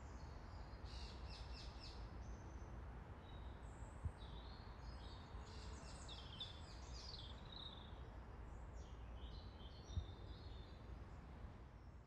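Small wild birds chirping and singing in short, high, quick phrases over a steady low outdoor rumble, with two faint thumps, one about four seconds in and one near ten seconds.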